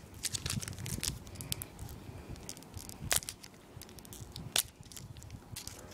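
Foil wrapper of a Pokémon card booster pack crinkling and crackling while being worked open with difficulty, with two sharper clicks about three and four and a half seconds in.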